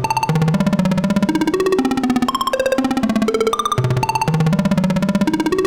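Make Noise Shared System modular synthesizer playing a stepped melodic sequence of short plucked tones. Each note is struck rapidly several times over, in repeated ratchet-like gates, and the pattern starts over after about four seconds.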